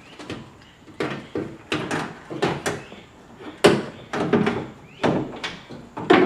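Door lock actuator and latch assembly knocking and clattering against the inside of a Dodge Dakota's door shell as it is worked into place: a run of irregular sharp knocks, the loudest about three and a half seconds in.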